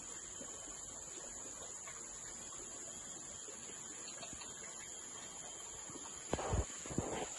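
Insects in the riverside forest buzzing steadily at a high pitch. Near the end come two short bumps and rustles of handling noise as a fishing rod is moved.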